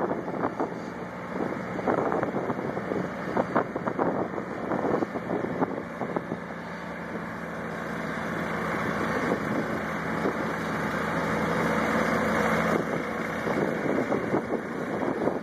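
Engine of a floating manure-lagoon agitator boat running steadily, its hum growing a little louder partway through as the boat comes closer, with wind buffeting the microphone.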